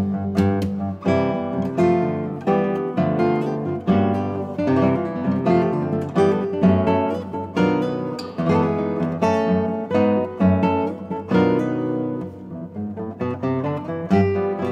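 Two classical guitars playing a duo, with plucked notes and strummed chord attacks that ring between them. The loudness dips for a moment near the end of the piece's phrase, a little after twelve seconds in.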